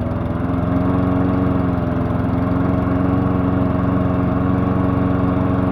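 Pulsar push mower's small engine running steadily at a constant speed, on its first run after sitting unstarted for a year.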